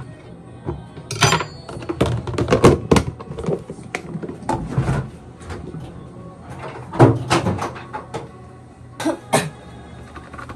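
Kitchen clatter: an irregular string of knocks and clinks as a knife, plastic food containers and a wooden cutting board are handled and set down on a counter, the loudest knocks about a second in, around two to three seconds in and about seven seconds in.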